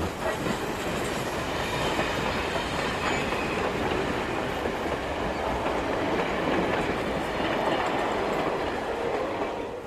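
Train running along the rails, a steady rumble of wheels on track that drops away near the end.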